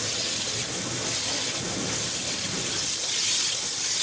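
High-pressure water jet from a KMT Autoline II waterjet cutting head spraying, a steady hiss and rush of water that grows a little louder near the end.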